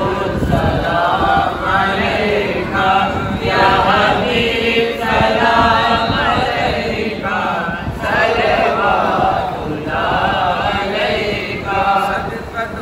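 Group of men chanting a salaam shareef, the devotional salutation sung standing, together in unison in short sung phrases with brief breaths between them.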